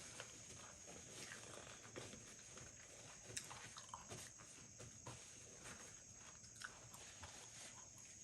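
Faint mouth sounds of someone eating nachos: soft crunching of tortilla chips and chewing, with scattered small clicks at uneven intervals.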